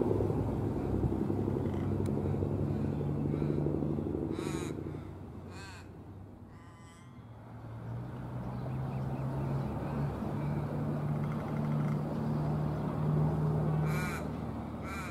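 A corvid cawing: a few calls with a wavering pitch, a handful of seconds in and again near the end. Under them runs a steady low engine hum.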